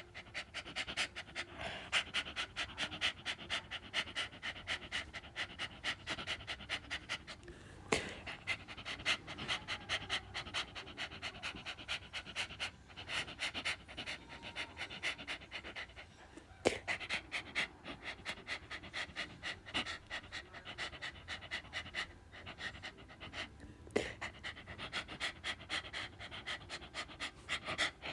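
A dog panting fast and evenly, with a sharp click about 8, 17 and 24 seconds in.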